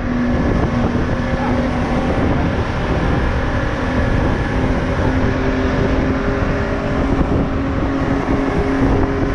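Fishing boat's engine running steadily under way, a constant drone, mixed with wind buffeting the microphone and water rushing past the hull in choppy sea.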